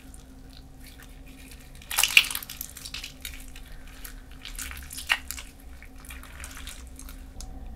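Stiff slime being kneaded and squeezed by hand with hand lotion worked into it to soften it, giving short wet squishing pops and clicks, the loudest cluster about two seconds in and another sharp one near five seconds.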